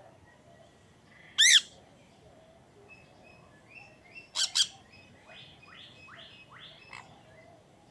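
Birds calling: a loud harsh call about a second and a half in, two more loud calls just after four seconds, then a run of about five quick rising chirps, with faint thin whistles from other birds behind.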